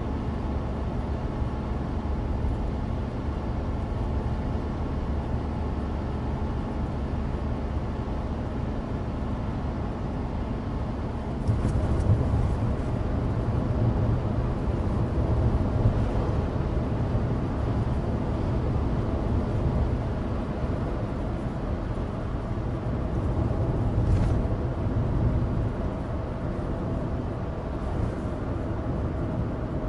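Inside a Suzuki Alto Turbo RS kei car on the move: its 660 cc turbocharged three-cylinder engine and the hum of studless winter tyres on a dry road, a steady low drone that grows louder about eleven seconds in.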